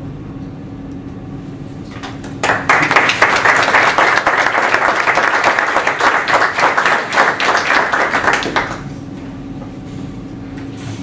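Audience applauding: the clapping starts about two seconds in, runs for roughly six seconds and dies away. A steady low hum sits underneath before and after the clapping.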